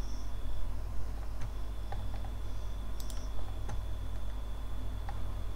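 A handful of scattered clicks from a computer keyboard and mouse, over a steady low hum.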